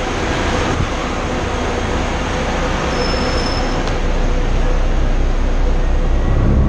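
Airport apron bus engine running, a steady low rumble heard from inside the bus that grows slightly louder toward the end.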